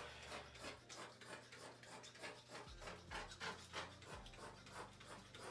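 Faint, quick rubbing and squishing strokes, about four a second: hair foam being pumped from a bottle onto the scalp and rubbed into faux locs by hand.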